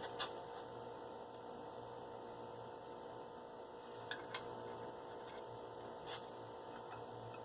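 Faint steady electrical hum with a few light clicks of metal parts being handled.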